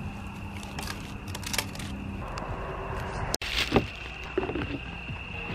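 Campfire burning with a few light crackles over a steady high-pitched tone. After a sudden cut about three and a half seconds in, a few knocks and clatters as items are handled on a plastic esky lid.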